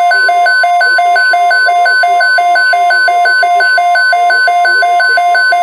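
Loud electronic weather radio alert tones: a harsh two-pitch warble alternating about three times a second over a steady 1050 Hz tone, the NOAA Weather Radio warning alarm. Faint broadcast speech runs underneath.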